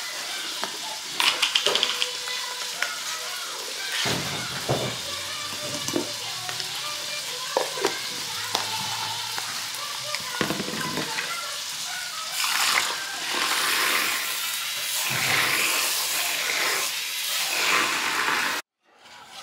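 Food sizzling and frying in a pan, a steady hiss, with music and singing playing in the background.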